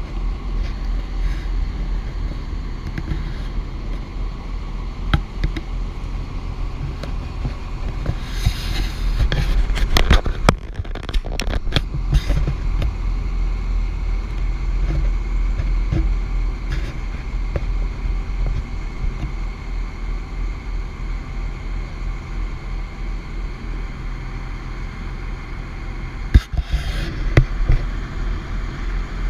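Jet boat engine running steadily, a continuous low rumble, with wind buffeting the microphone. Louder rushing bursts come about a third of the way in and again near the end.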